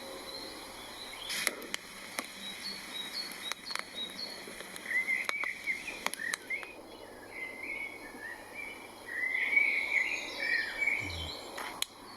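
Woodland birds singing: short chirping and warbling notes, sparse at first and busier in the second half, with a few sharp clicks scattered among them.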